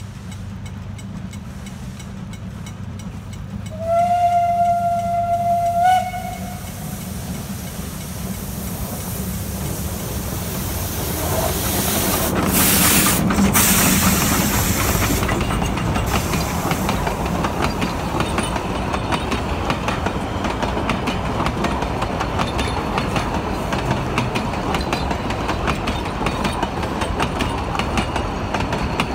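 Narrow-gauge Garratt steam locomotive G42, built 1926, blows one steady whistle for about two seconds, starting about four seconds in. It then draws near and passes close, loudest as the engine goes by about twelve to fourteen seconds in. Its passenger carriages follow, rolling past with a steady clickety-clack of wheels on rail.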